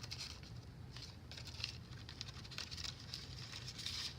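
Paper and card rustling and softly tapping as journal pages, tags and a paper doily are handled, in short irregular scrapes over a faint steady low hum.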